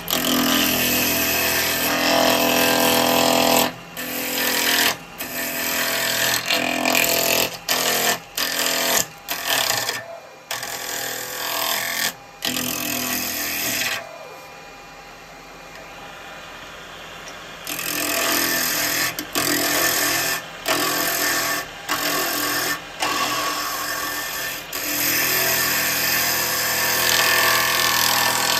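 Wood lathe turning an off-balance wood blank while a turning tool roughs it down, giving a loud, rough cutting noise. The noise breaks off in many short gaps as the tool leaves the wood. About halfway through there is a quieter spell of some three seconds, with only the lathe's steady hum.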